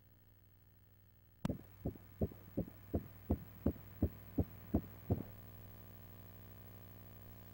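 Fetal heartbeat of a 13-week pregnancy heard through an ultrasound machine's pulsed Doppler: eleven quick, even whooshing pulses, just under three a second (a heart rate of about 155 beats a minute). They start suddenly about a second and a half in and stop about two seconds before the end.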